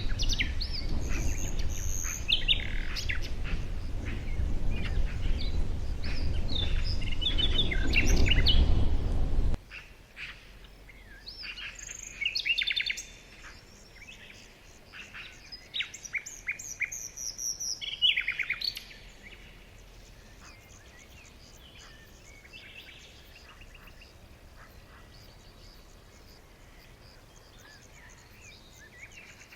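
Songbirds chirping and trilling over a steady low rushing noise that cuts off abruptly about a third of the way in. The birdsong carries on, sparser and quieter, until a little past halfway, leaving only a faint hiss.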